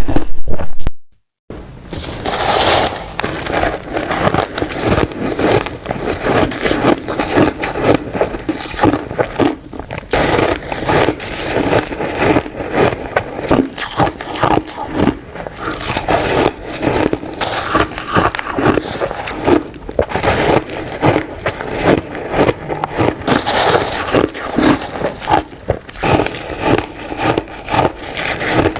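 Close, continuous crunching and crackling of hand-compressed shaved ice, with many rapid sharp crunches. It starts after a brief silence about a second in.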